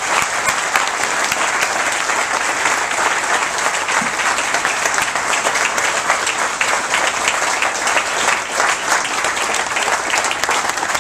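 Audience applauding: many hands clapping together in a dense, steady stream.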